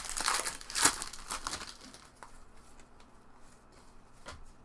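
Trading cards and their packaging being handled: crinkling and rustling for about two seconds, loudest about a second in, then quieter, with a single click near the end.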